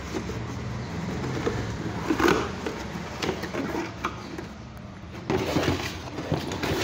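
A cardboard charger box scraping and knocking against the plastic under-seat storage compartment of an electric scooter as it is handled and lifted out, with a few scattered knocks.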